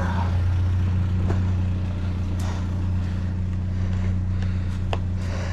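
Vehicle engine idling with a steady low hum. A few sharp metallic clicks and knocks, three or so spread through, come from work on a metal chair being taken apart.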